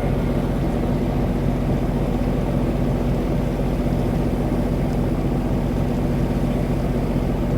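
Steady low drone of a boat's engine, a constant hum of several deep tones with no change in speed.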